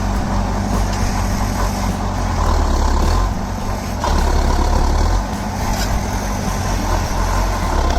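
Bulldozer diesel engine running with a deep, steady rumble.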